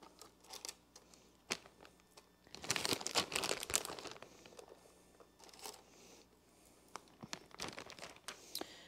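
Soft crinkling of a plastic bag of shredded cheese being handled and shaken out over tortilla chips, with scattered light rustles and clicks; the loudest stretch of crinkling comes about two and a half to four seconds in.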